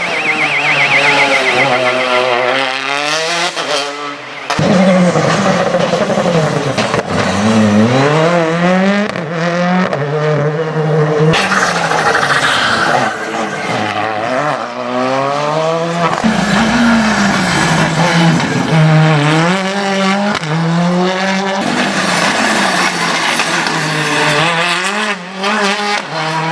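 Rally cars at full speed on a stage. Each engine revs up and drops back repeatedly through gear changes and lifts, with some tyre noise.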